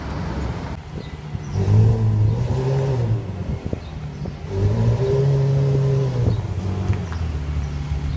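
Ferrari F12's V12 engine given two short bursts of throttle a few seconds apart as the car creeps away. Each time the note rises, holds briefly, then falls back to a low idle rumble.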